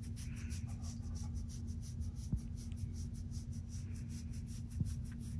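A hand scratching a dog's fur on its rump: quick, even rubbing strokes, several a second. A steady low hum runs underneath.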